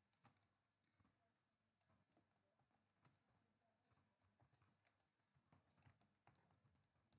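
Faint typing on a computer keyboard: short, irregular key clicks in quick succession.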